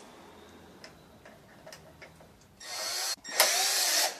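Cordless drill/driver running, driving a screw into the sheet-metal cover plate of an electric water heater's wiring compartment. It runs in two short bursts starting about two and a half seconds in, with a brief stop between, after faint handling clicks.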